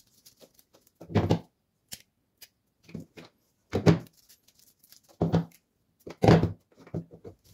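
Handling sounds from rose cuttings being made by hand: leaves pulled off a green rose stem and cut stems set down on a hard tabletop. A few short rustling snaps and knocks, about four louder ones among small ticks, with quiet gaps between.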